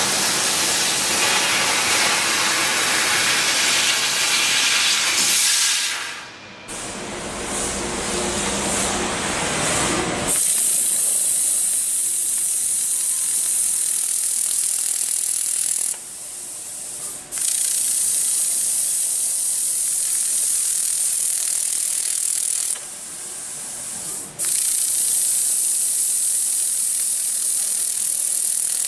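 CNC laser cutting head cutting metal plate: a steady rushing hiss of the assist-gas jet and the cut. About ten seconds in it turns to a higher, brighter hiss, which stops briefly twice between cuts.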